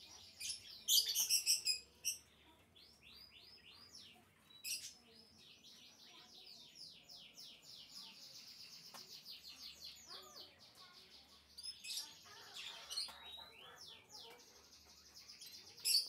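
Canary singing: long rolling trills of quick repeated high notes, broken by a few louder, sharper chirps, the loudest cluster about a second in.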